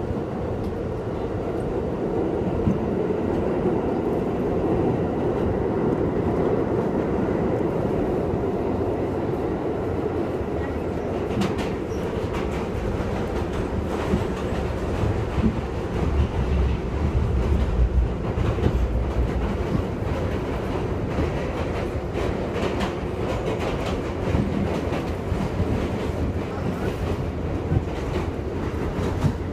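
R62A subway train of the 42nd Street Shuttle running through the tunnel, a steady rumble with wheels clacking irregularly over rail joints. The low rumble swells about halfway through.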